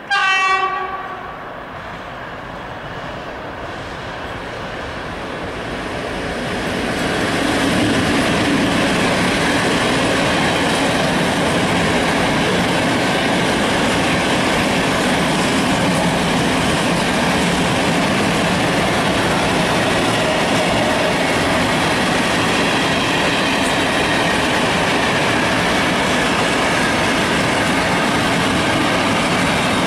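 An ET22 electric locomotive sounds one short horn blast, then the freight train draws near and passes, growing louder over several seconds into the steady noise of wheels running over the rails.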